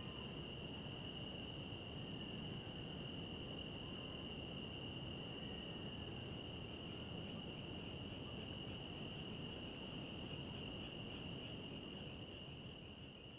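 Night insects: a cricket trilling in one steady high tone, with another insect giving short, higher chirps at irregular intervals, over a faint low background hiss.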